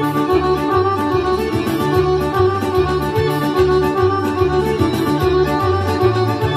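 Bulgarian folk horo dance music: a melody line over a steady, evenly repeating bass beat.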